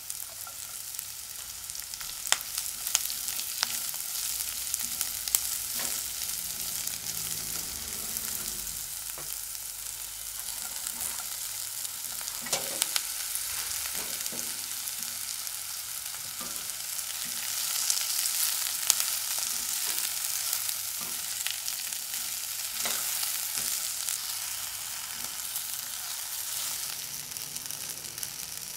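Sliced onion, bell pepper and chilies sizzling in hot oil in a ceramic-coated wok as they are stir-fried, with a spatula scraping and clicking against the pan; crispy fried chicken pieces join the vegetables partway through. The sizzle swells louder about two-thirds of the way through.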